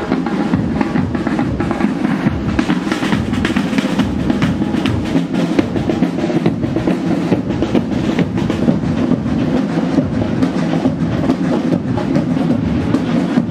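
Military marching band playing: snare and bass drums beating a steady march with rolls, over the band.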